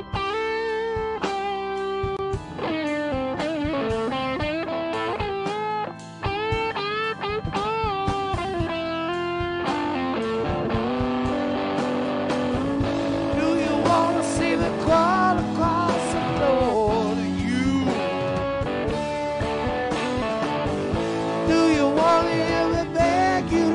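Live blues-rock band playing: an electric guitar plays a lead line with bent notes over drums, bass and keyboards, then a male singer comes in about ten seconds in.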